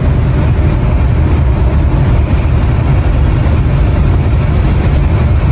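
Motorhome driving at road speed: a steady low rumble of engine and road noise heard from inside the cab.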